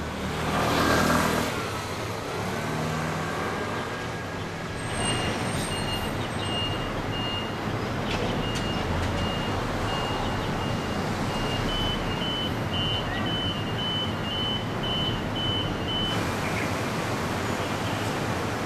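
Street ambience: steady traffic noise, louder as a vehicle passes in the first two seconds. A thin, high repeating beep sounds on and off through the middle.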